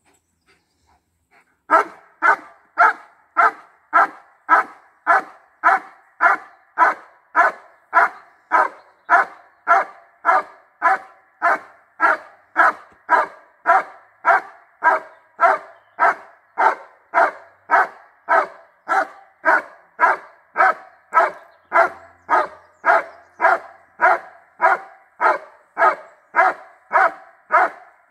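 German Shepherd Dog barking continuously at a blind: a steady, evenly spaced run of loud barks, nearly two a second, starting about two seconds in. This is the bark-and-hold of protection work, the dog's signal that it has found the hidden helper and is holding him at the hide.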